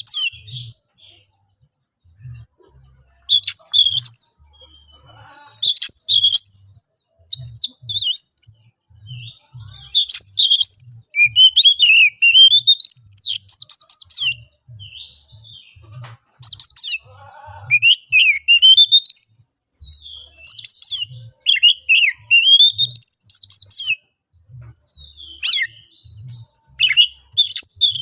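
Oriental magpie-robin (kacer) singing an insistent, aggressive song in loud bursts of whistles, rising and falling glides and rapid phrases, separated by short pauses. This is the fighting song used as a lure to make other magpie-robins answer.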